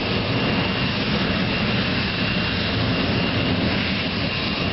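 Jet dragster's turbine engine running steadily: a constant high whine over a broad, even rushing noise.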